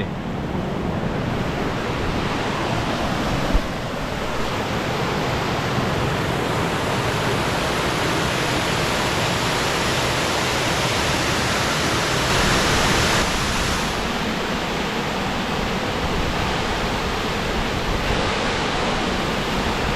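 Crystal Cascade waterfall: a steady, loud rush of falling water. There is one brief thump about three and a half seconds in.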